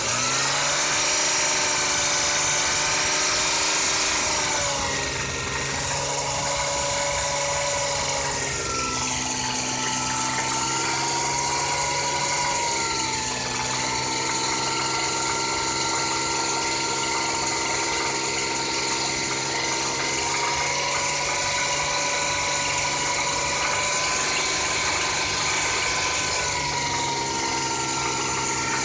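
Toyota 1JZ-GE inline-six engine running. Its speed falls in steps over the first dozen seconds, then settles to a steady idle with a constant whine. No clear knock is heard; the owner says this engine, which he believes has a spun bearing, knocks only on a cold start and around 3000 rpm, not at idle.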